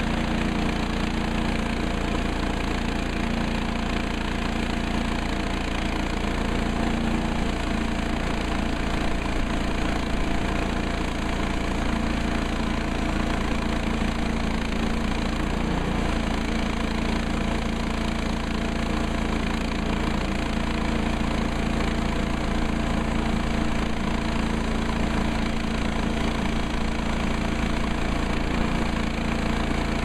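Woodland Mills HM130MAX portable bandsaw mill's gas engine running steadily.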